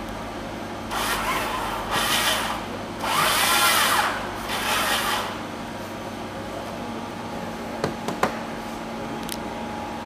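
Electric motors of a robotic kite control bar driving in short bursts, four times in the first five seconds, their whine rising and falling in pitch as they speed up and slow down. A few sharp clicks near the end.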